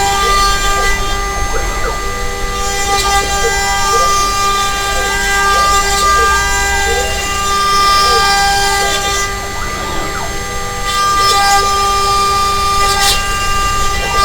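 DIY CNC router milling plywood with a single-flute end mill: the spindle holds a steady high whine while the stepper motors sweep up and down in pitch as the axes speed up and slow through an adaptive toolpath. Hissy cutting noise comes and goes as the bit engages the wood.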